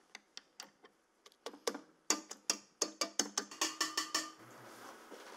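Stand mixer's wire whisk knocking against its stainless steel mixing bowl: a few scattered clicks, then a quick run of sharp metallic taps, about five a second, each with a short ring.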